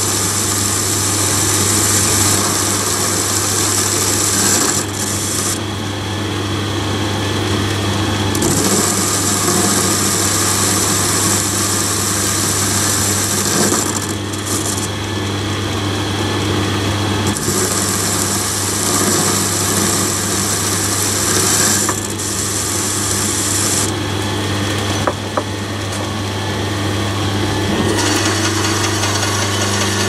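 Metal lathe running with a steady motor hum while a carbide turning tool takes light 10-thou cuts off the soft steel end of a quick-change tool-post cam-lock spindle. A high cutting hiss comes and goes in stretches of a few seconds as the tool feeds along.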